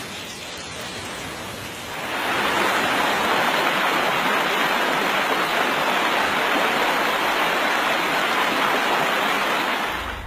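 Steady rushing water noise that grows louder about two seconds in and drops away at the end.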